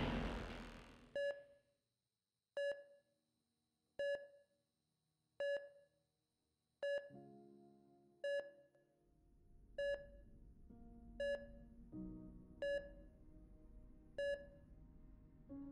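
Hospital patient monitor beeping at a slow, even pace: ten short beeps about one and a half seconds apart. A loud sound fades out in the first second, and a low musical drone comes in about halfway through.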